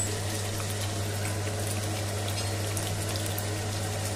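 Thick onion-tomato gravy bubbling steadily in a pan on the stove, a soft continuous simmer with small pops, over a steady low hum.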